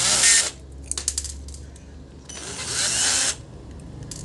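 Cordless drill-driver running in two short bursts, about a second each, backing out small screws on a soldering iron's heater element, with a few light clicks between the bursts.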